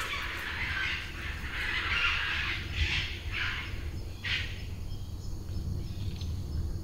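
Footsteps and rustling through weeds and mud: a run of irregular swishing crunches that stops about four and a half seconds in, over a low steady rumble.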